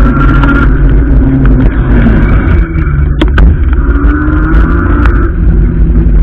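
Wind rumble on the bike-mounted camera's microphone and road noise as a fat-tyre electric bike rides between queued cars, with a whine that comes and goes and two sharp clicks a little past the middle.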